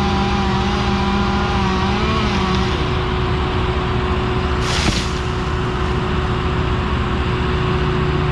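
Heavy engine running steadily at a constant pitch, with a second engine note that wavers and fades out about two and a half seconds in, and a short sharp hiss just before the five-second mark.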